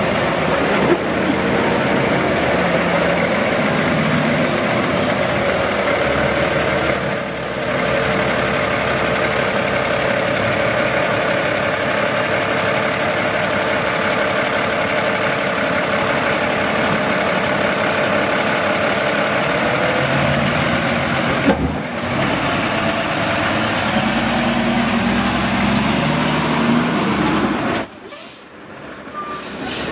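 Diesel semi-truck engine running as a tractor-trailer pulls slowly past, a loud steady drone that briefly drops away near the end.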